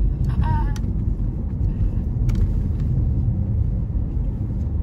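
Steady low rumble of road and engine noise inside a moving car, with a brief voice about half a second in.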